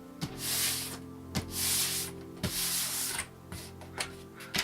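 Hands rubbing a paper chart flat onto glued foam-core board, in three or four separate sweeping strokes with a few light taps between them. Soft background music plays underneath.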